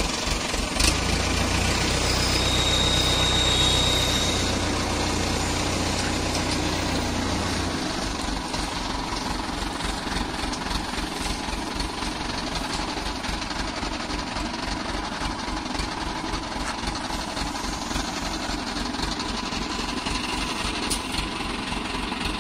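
Diesel engine of a Hydra pick-and-carry crane running steadily with an even low knock, heavier and louder for the first several seconds, then settling to a lighter idle about eight seconds in.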